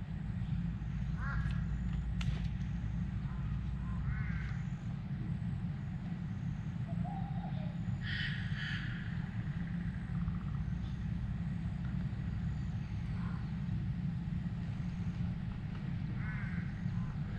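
Birds calling a few times, short cawing calls spaced out over several seconds, over a steady low rumble.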